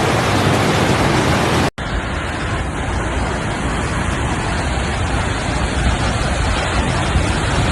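Steady rushing noise of floodwater and rain, broken by a brief dropout about two seconds in.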